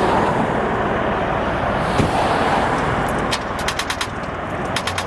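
Bell Boeing MV-22B Osprey tiltrotor, a loud steady roar of its proprotors and engines. About three seconds in, a fast rhythmic beating of about ten pulses a second sets in, twice.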